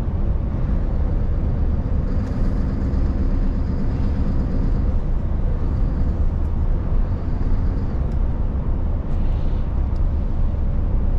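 Scania S770's 16-litre V8 diesel running steadily at cruising speed, heard from inside the cab, over a constant low road and tyre rumble.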